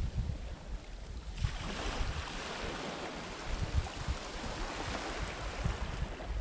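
Wind buffeting the microphone in irregular low gusts over a steady rushing hiss of wind on an open shoreline. The hiss thins for about a second near the start, then returns.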